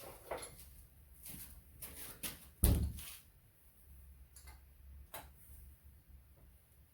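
Scattered clicks and knocks of tools and engine parts being handled during disassembly, with one louder knock about two and a half seconds in.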